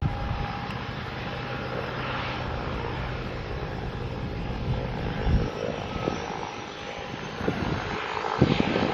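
De Havilland Canada DHC-6-300 Twin Otter's twin PT6A turboprop engines and propellers running steadily as it taxis, heard from a distance, with a faint high whine that rises slowly from about halfway through. A few low thumps come in the middle and near the end.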